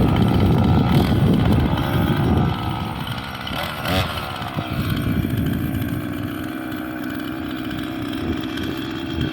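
Husqvarna 445 two-stroke chainsaw running under load as it cuts further into the tree's back cut, then running more quietly and steadily from about two and a half seconds in.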